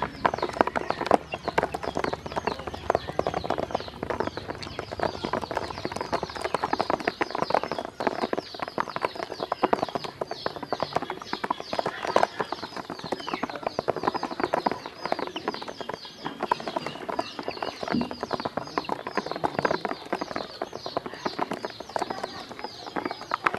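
A group of ducklings pecking and dabbling in a plastic basin: rapid, constant clicking and tapping of bills against the plastic, with many high peeping calls throughout.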